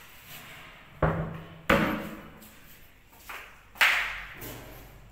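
A few sharp knocks and thuds: three loud ones about a second, a second and three quarters, and nearly four seconds in, each ringing briefly, with a couple of fainter taps between them.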